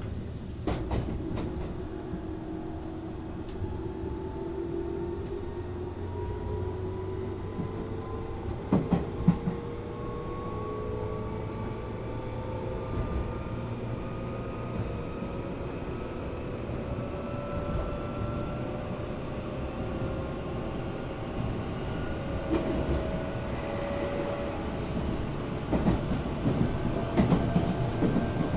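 Tobu 8000 series resistor-controlled electric train running, its traction motor and gear whine rising slowly in pitch as the train gathers speed over a steady wheel rumble. Rail-joint clacks come about nine seconds in and again near the end.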